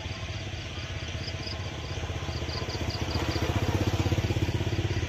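A small engine running with a fast, even putter. It grows louder up to about four seconds in, then eases slightly, like an engine passing close by.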